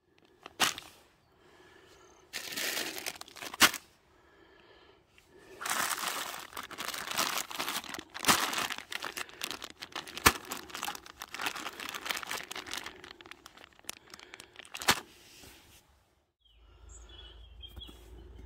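Plastic food pouches crinkling and rustling as they are handled, in several spells, with a few sharp knocks as things are set down.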